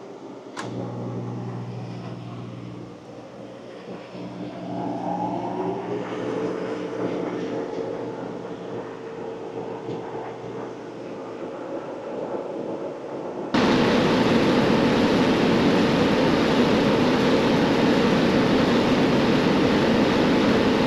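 A switch clicks, then the laser cutter's machinery starts humming, with one tone rising as something spins up over a few seconds. About two-thirds of the way in, a loud steady rush of air takes over: the laser cutter running as it cuts the sheet.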